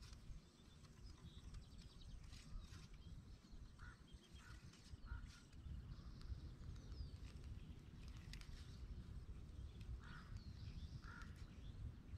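Near silence: a faint low rumble, with a few short faint calls and light clicks scattered through.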